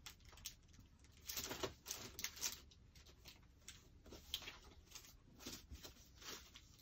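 Faint, irregular rustling and light scraping of paper and photos being handled and shuffled through.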